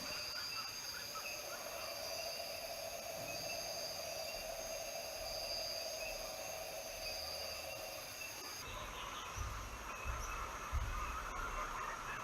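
Steady insect chorus with several high held tones. About two-thirds of the way in, the background changes abruptly and low rumbles come in.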